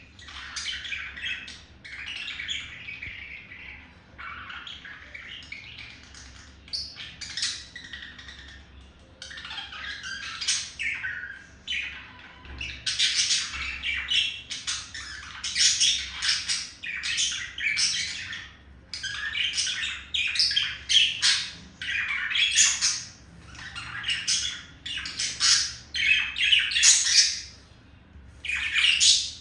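Male budgerigar's courtship warble to a female: a near-continuous chatter of squawks and chirps, growing louder about halfway through.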